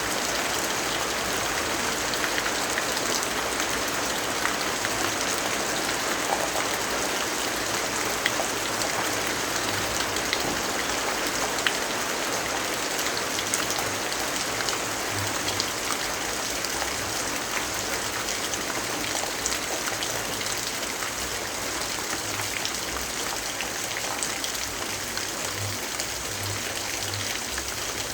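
Steady rainfall, an even hiss with scattered small ticks of drops.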